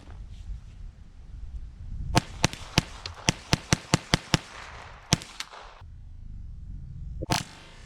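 Ruger Charger .22 LR semi-automatic pistol firing a rapid string of about ten shots in roughly two seconds, starting about two seconds in. Two more shots follow, then one louder shot near the end.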